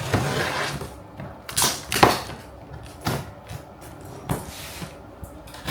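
Scissors slicing the packing tape on a cardboard appliance box and the cardboard being pulled open: a scraping stretch at first, then several short, sharp rasps and scrapes.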